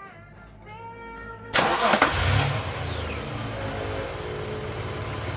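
Hyundai Galloper's LPG engine catching on the first try about a second and a half in, revving briefly, then settling to a steady idle, with its freshly overhauled, leak-repaired vaporizer.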